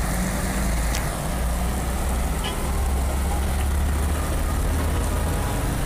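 A motor vehicle's engine running steadily, a low even rumble.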